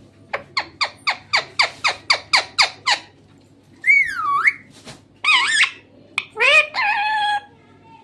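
Green parrot calling: a fast run of about a dozen short, sharp squawks, some four a second, then three longer squawks with swooping pitch.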